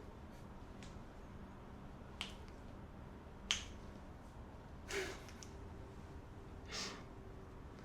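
A handful of short, sharp pops, spaced a second or more apart, the loudest about three and a half seconds in, from joints cracking under chiropractic manipulation. A softer, longer rush comes near the end.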